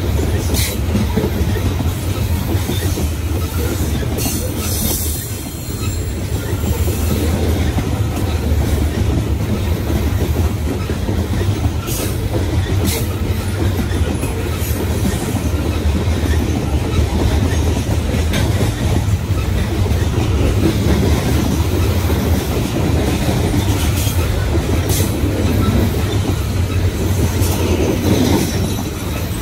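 Loaded coal train of open-top steel coal gondolas rolling past at speed: a steady rumble of wheels on rail with clacking, and brief high wheel squeals now and then.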